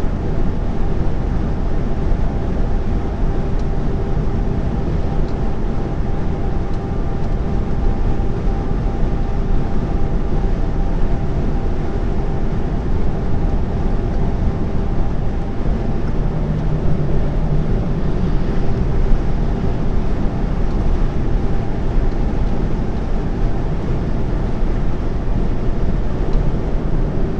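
Steady engine and road noise inside a lorry cab cruising at constant speed: an even low rumble with a constant engine hum that does not change pitch.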